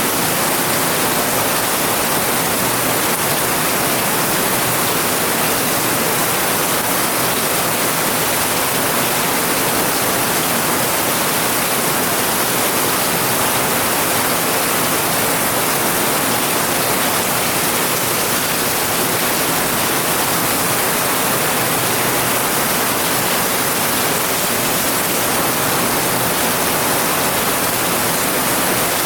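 Steady rain falling on grass: an even, unbroken hiss with no single drops standing out.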